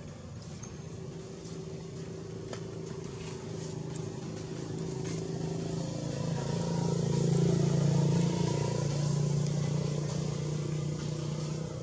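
A motor vehicle's engine passing by: a steady hum that grows louder to a peak about eight seconds in, then fades.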